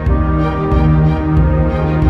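Background music: sustained chords over a deep, steady bass.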